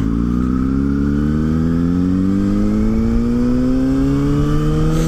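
Motorcycle engine pulling under acceleration in one gear, its note climbing slowly and evenly.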